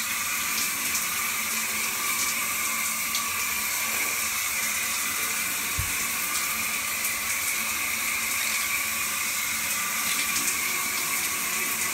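Shower water running steadily, an even hiss of spray, with one short low thump about six seconds in.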